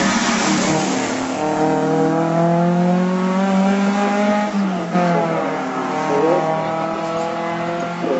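Alfa Romeo Giulia Sprint coupé's twin-cam four-cylinder engine at full throttle, accelerating hard uphill with its revs rising steadily. About five seconds in the pitch falls for an upshift and climbs again, and the engine fades a little as the car pulls away.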